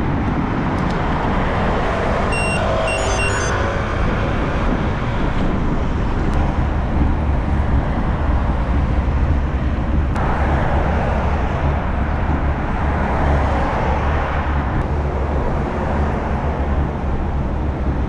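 Steady wind rumble on a bike-mounted action camera's microphone while riding, over the noise of car traffic passing on the road, which swells and fades as vehicles go by.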